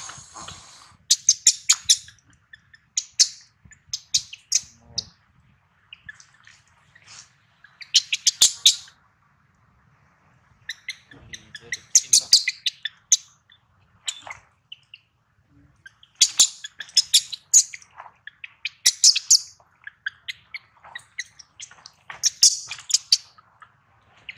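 Baby macaque crying: bouts of short, high-pitched squeaky calls, several quick notes at a time, repeating every second or two with a brief lull midway. It is the distress call of a hungry infant being kept from nursing.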